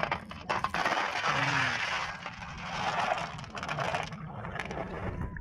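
Glass marbles clicking as they drop into a basin of water, followed by the water sloshing and swirling in the basin for a few seconds as the marbles are washed.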